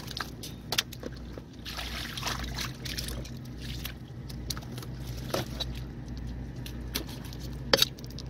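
Kitchen knife cleaning a fresh mullet on a plastic cutting board: scattered sharp knocks and clicks of the blade striking the board as it cuts through the fish, the loudest about a second in and near the end. Water runs off the fish as it is lifted from the bucket at the start, over a steady low rumble.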